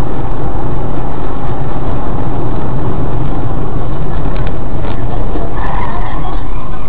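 Loud, steady road and engine noise inside a moving car, picked up by a dashcam microphone and heavily overdriven.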